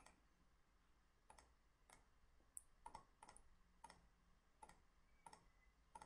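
Faint computer mouse clicks: about a dozen short clicks, mostly in close pairs, spaced unevenly over several seconds.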